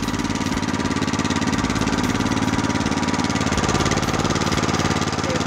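Husqvarna TR430 tiller's small petrol engine running steadily at an even speed, freshly reassembled after a clutch repair.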